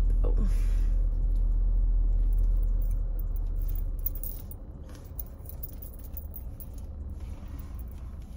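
Low rumble of a moving car heard from inside the cabin, with scattered light clicks and rattles. The rumble drops away about four seconds in.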